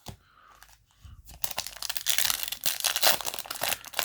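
Foil booster-pack wrapper being torn open and crinkled: a dense crackling that starts about a second and a half in and keeps going.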